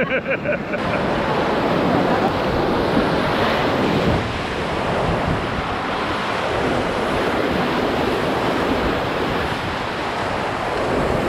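Whitewater rapids rushing and splashing loudly close around a raft, a steady dense roar that eases slightly about four seconds in.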